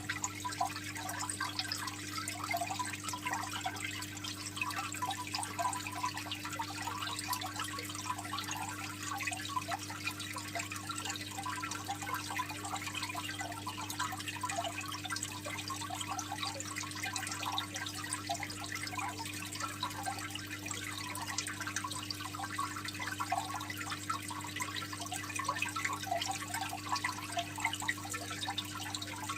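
Aquarium water trickling and splashing continuously, a dense patter of small droplets, over a steady low hum.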